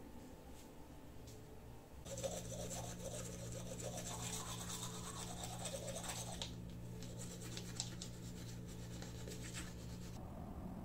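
Manual toothbrush scrubbing teeth in quick back-and-forth strokes, starting about two seconds in and stopping near the end, over a steady low hum.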